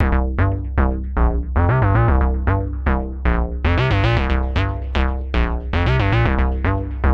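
Instrumental music: a run of short synthesizer notes, each dying away quickly, about two to three a second, over a steady bass.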